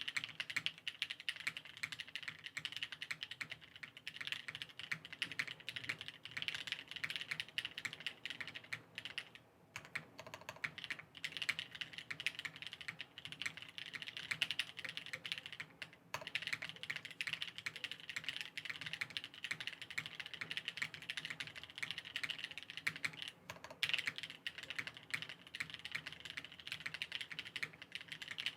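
Continuous typing on a Daal custom mechanical keyboard with lubed NovelKeys Cream linear switches, o-ring PCB mount and GMK ABS keycaps: a rapid, steady stream of keystrokes, with brief pauses about ten, sixteen and twenty-four seconds in.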